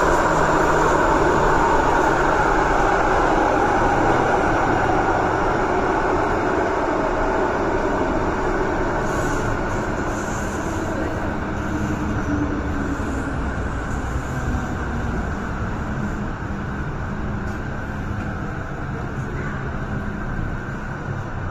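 MTR M-train electric multiple unit running through a tunnel and slowing into a station. The dense rumble of wheels and running noise fades steadily, with a faint falling whine about halfway through.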